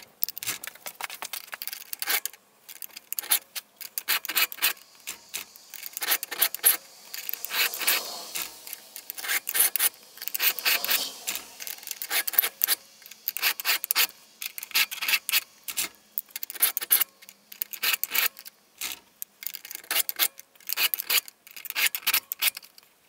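Flat file rasping back and forth over the depth gauges (rakers) of a .325-pitch Stihl chainsaw chain clamped in a vise, through a depth-gauge tool, in many short repeated strokes.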